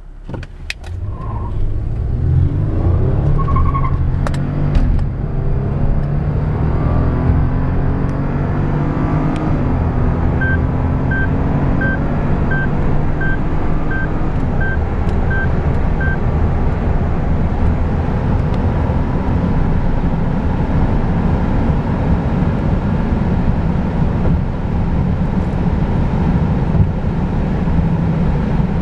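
Full-throttle acceleration heard inside the cabin of a 2008 Lexus ES350. Its 3.5-litre V6 climbs in pitch and drops back at each automatic upshift over the first nine seconds or so, then engine, wind and tyre noise settle into a steady loud rush at high speed. From about ten seconds in, the car's speed-limit-exceeded warning chime sounds about nine short beeps, a little under a second apart.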